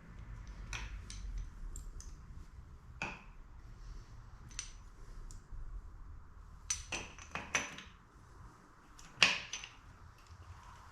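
Scattered metallic clinks and taps of hand tools and small metal parts being handled and set down. The loudest sharp clink comes about nine seconds in.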